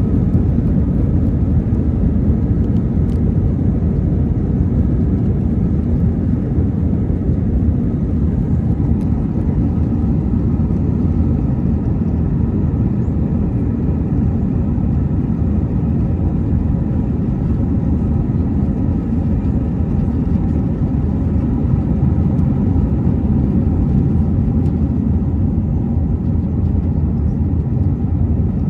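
Steady low rumble inside the cabin of an Airbus A320 airliner: engine and airflow noise, even and unbroken throughout.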